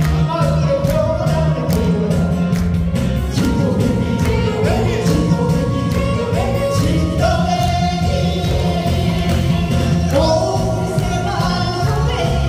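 A Korean trot song performed live through a PA: singers' voices over a backing track with a steady, even bass beat.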